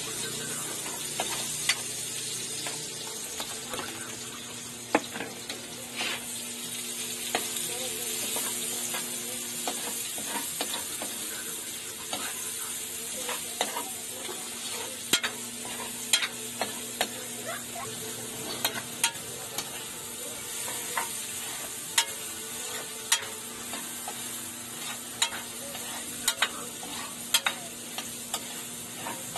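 Food sizzling in oil in an aluminium wok as sliced carrots are stir-fried, with a metal spatula scraping and clicking against the pan at irregular moments throughout.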